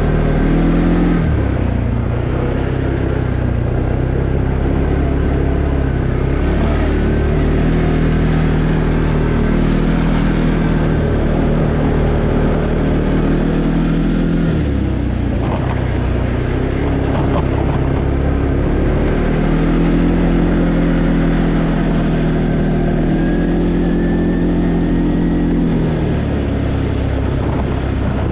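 Arctic Cat Alterra 700 ATV's single-cylinder four-stroke engine running on the move. Its pitch steps down and back up several times as the engine speed changes.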